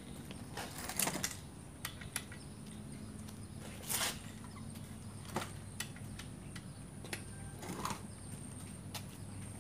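Scattered light clicks and knocks of hands handling a backpack brush cutter's engine, which is not running, with three slightly louder clatters spread through.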